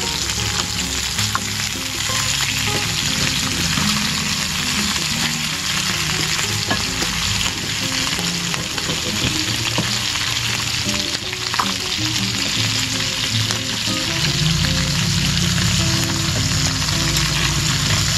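Chicken frying in a stainless electric skillet: a steady sizzle of hot fat, with a few light scrapes and taps of a wooden spatula as the pieces are stirred and turned.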